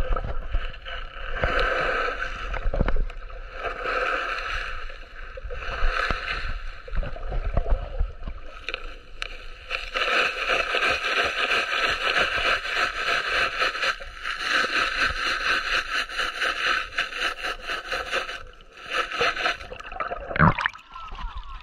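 Shell gravel and sand scraped up and rattled in a sifter in shallow water, with water sloshing. The scrapes come about every two seconds at first, then give way to a long continuous rattle lasting several seconds, with a sharp knock near the end.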